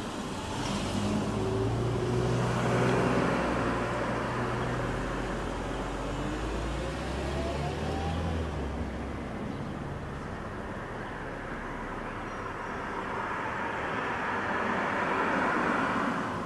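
Outdoor background with road traffic: a motor vehicle's low engine hum swells over the first few seconds and fades by about eight seconds in. A faint rising whine comes around seven seconds in, and another rush of passing traffic comes near the end.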